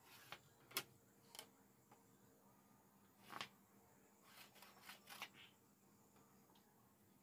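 Faint, scattered taps and scrapes of a wooden ruler being set down and shifted on a cutting table while tailor's chalk marks lines on fabric, with a sharp tap just under a second in and a small cluster of clicks about five seconds in.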